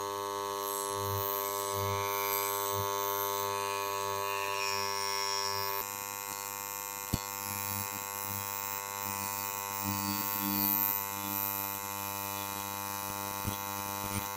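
AC TIG welding arc on aluminium buzzing steadily, with a sharp click about seven seconds in.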